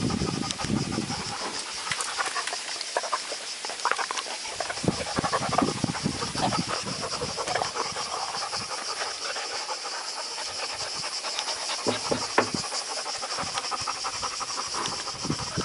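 A dog panting with a ball toy in its mouth, short irregular breaths and small knocks, over a steady high-pitched hiss.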